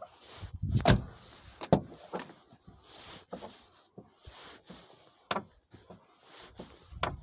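Rear door of a Lada Granta being swung and shut, with several knocks from the door and latch and a creaking in between: the squeak from the rear door that the owner is trying to track down.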